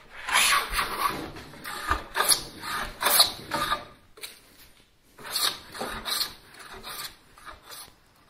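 Hand plane taking short, quick strokes along a pine 2x4, shaving down its high spots: a run of rasping strokes, a pause about four seconds in, then a few more strokes.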